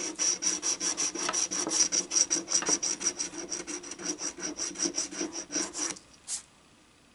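Coating being scratched off an Illinois Lottery Black scratch-off ticket: quick, rapid scraping strokes, several a second. They stop about six seconds in, with one last stroke just after.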